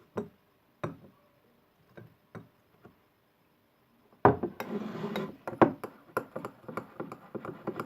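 A spoon clicks against a plate a few times. About four seconds in, a spoon begins stirring the glue-and-shaving-foam slime in the plate as the borax activator is mixed in, giving a continuous wet scraping with many quick clicks.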